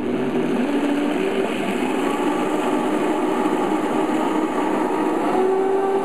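Vitamix blender with a small container running at speed, grinding pumpkin seeds with lemon juice, garlic, olive oil and a little water into a creamy dressing. It runs steadily, and its pitch steps up a little about five seconds in as the mixture smooths out.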